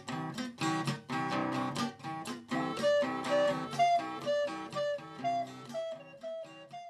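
Guitar playing a jam, a quick run of plucked and strummed chords and single notes, growing quieter through the second half as the piece dies away.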